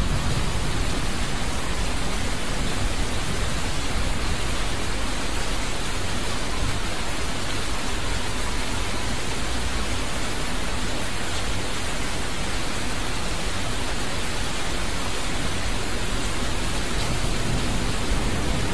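Tropical cyclone wind and heavy driving rain, making a loud, steady, even hiss without gusts or breaks.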